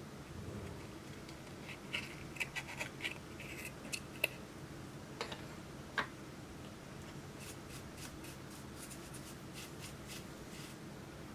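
Thin metal tool scraping and picking pressed eyeshadow out of a plastic compact palette, with short gritty scratches and sharp clicks against the pans. Later the scrapes give way to a run of faint quick ticks as a makeup brush is worked over the palette.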